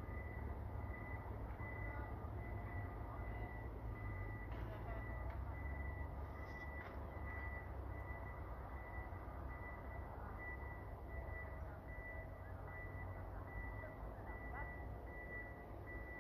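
A faint high electronic beep repeating about twice a second, over a low rumble.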